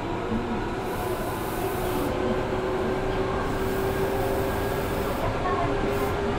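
Interior running sound of an Osaka Municipal Subway 66 series train with a Mitsubishi IGBT inverter: a steady rumble of wheels on rail, with a few steady motor and inverter hums beneath it.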